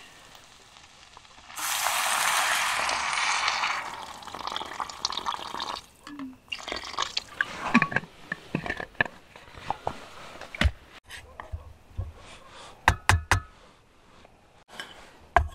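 Water poured from a bottle into a cooking pot, a steady splashing pour of about two seconds that tails off, then scattered knocks and clinks of cookware as a wooden spoon stirs the pot.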